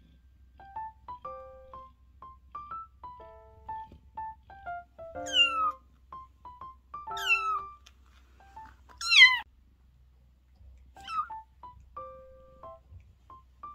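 A kitten mewing four times, high calls that fall in pitch, the third the loudest. Light piano background music plays under them.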